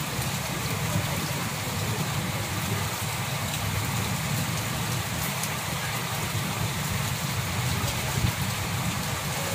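Steady rain falling: a continuous hiss with scattered drop taps.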